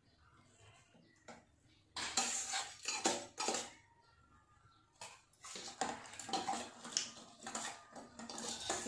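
Metal kitchen utensils and pots clattering, in a burst about two seconds in and again from about five seconds in.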